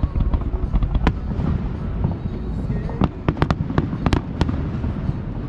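Aerial fireworks going off: a continuous low rumble of booms, with a sharp crack about a second in and a quick cluster of cracks from about three to four and a half seconds in.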